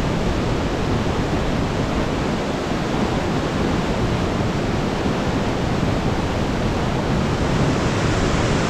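Swollen mountain creek rushing through whitewater rapids just below a footbridge: a steady, loud, unbroken rush of water.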